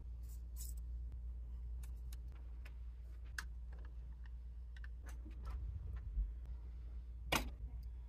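Light clicks and taps of a diecast model crane truck's small metal and plastic parts being handled, with one louder click about seven seconds in, over a low steady hum.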